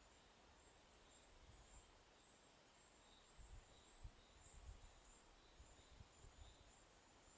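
Near silence: faint outdoor ambience, with soft, high chirps repeating every half second or so and a few low thumps on the microphone around the middle.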